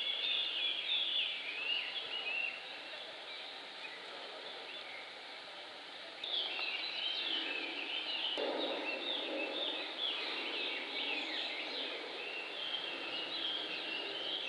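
Small birds chirping and twittering in quick, overlapping calls, with a lull of a few seconds before they grow busy again about six seconds in, over a steady outdoor background hiss.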